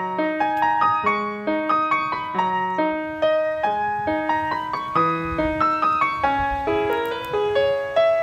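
Background piano music: a gentle melody of quickly repeated notes, each struck and fading.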